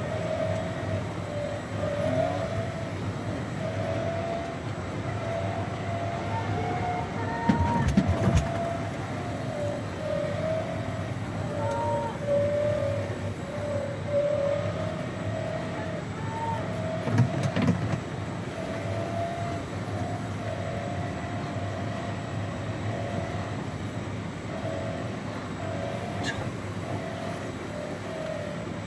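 Engine of the vehicle carrying the camera running at a steady speed, its pitch wavering slightly, over a low rumble. Two heavy low thumps come about a third of the way in and again past the middle.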